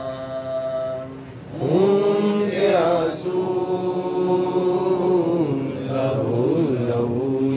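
Noha, a Shia lament, chanted by a male voice in long held, wavering notes, with a short break a little after a second in before the next phrase.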